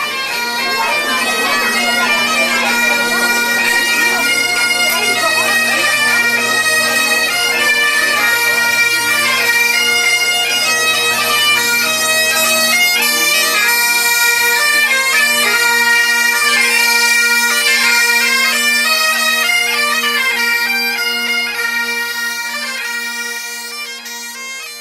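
Bagpipe music: a melody played over steady drones, fading out near the end.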